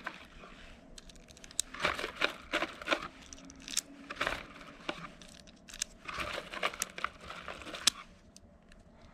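Light clicks and rustling from handling Glock 44 .22 LR magazines and loose rounds, in scattered short bursts.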